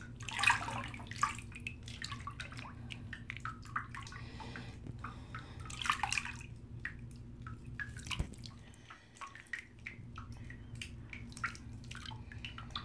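Bathwater in a tub dripping and splashing lightly as a hand moves through it: scattered small drips and plops over a faint steady low hum.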